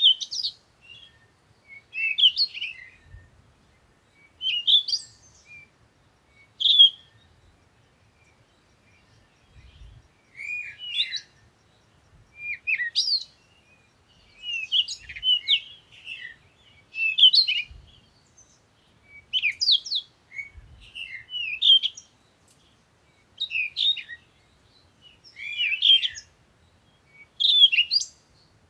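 A small bird chirping and twittering in short phrases, one every second or two.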